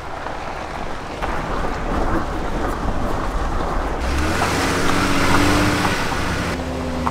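Jeep Wrangler driving: a rushing noise of tyres and wind with scattered ticks, joined by a steady low engine hum about halfway through. The rushing grows louder with the engine, then drops off suddenly near the end.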